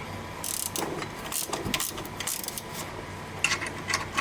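Irregular metallic clicks, ratcheting and scrapes from a wrench and metal parts as the BMW E34's power steering pump is worked loose from its mounting bracket.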